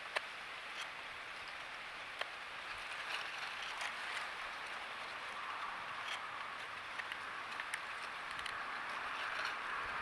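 Scattered light clicks and taps from a blue jay picking through mixed seed on a wooden tray feeder, over a steady outdoor hiss that grows slightly louder near the end.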